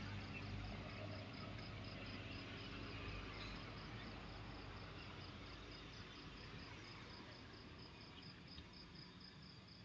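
Crickets chirping in a steady high-pitched pulse, about four chirps a second, faint.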